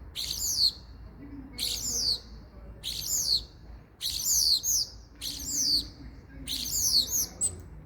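Common starling calling: six short, high calls, each a quick falling sweep, repeated about once a second.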